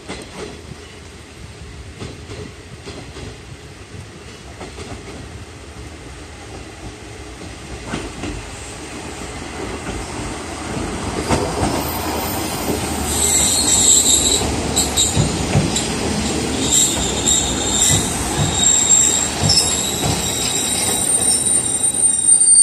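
Two-car KiHa 37 diesel railcar set arriving at a station: its running and the noise of its wheels on the rails grow steadily louder as it approaches and passes close by. From about halfway through, high-pitched squealing from the wheels and brakes sets in as it slows for its stop, loudest near the end.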